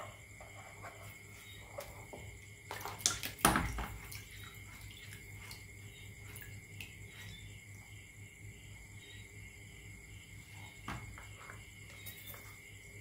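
Rubber-band paddle boat's popsicle-stick paddles splashing in a basin of water: one loud splash about three seconds in as the boat is let go, then light dripping and lapping while it runs.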